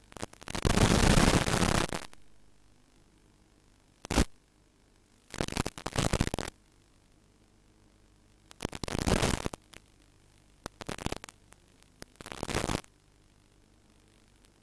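Bursts of hissing static from the FPV video link's receiver audio as the signal breaks up. About six bursts, the longest and loudest about two seconds long right at the start, with near silence between them.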